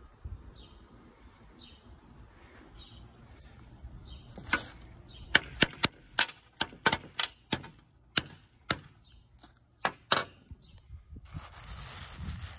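Hammer knocking on a small glazed ceramic elephant vase to crack it open: about a dozen sharp knocks over some six seconds, some in quick pairs.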